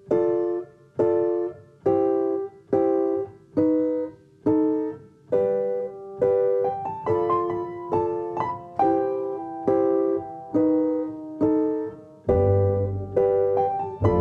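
Background music: a keyboard plays repeated chords about once a second, each one struck and fading, with a low bass coming in near the end.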